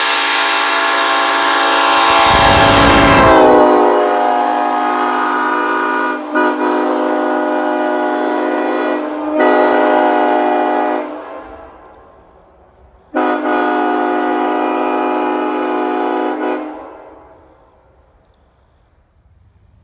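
Nathan Airchime K5-series five-chime locomotive air horn blowing a deep, loud chord. It sounds in one long blast with two short breaks, trailing off, with a brief low rumble under it early on. After a gap of about two seconds it gives a second blast of a few seconds that dies away.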